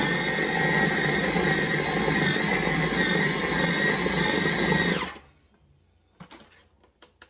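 KitchenAid 13-cup food processor running steadily as it mixes pie crust dough, switching off about five seconds in and briefly spinning down. A few faint clicks follow.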